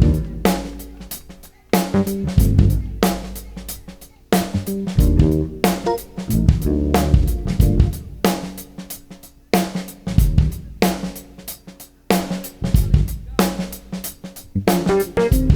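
Jazz-fusion band playing live with the drum kit to the fore: snare, bass drum, hi-hat and cymbal hits over keyboard and bass notes, in phrases that break off briefly about every two seconds.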